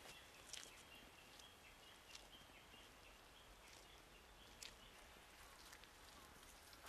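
Near silence: faint footsteps on a muddy rice-paddy levee, heard as a few soft, scattered clicks that thin out after the first couple of seconds, over a faint hiss and a thin high tone that comes and goes.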